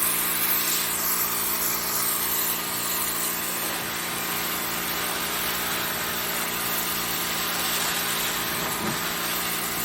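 Pressure washer running steadily: a small engine's steady hum under the continuous hiss of the spray.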